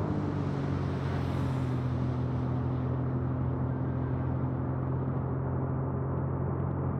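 Tuned Suzuki Alto Turbo RS's 660cc R06A turbocharged three-cylinder engine running hard at speed, a steady engine drone with wind and road noise; its pitch drops right at the start, then holds nearly level.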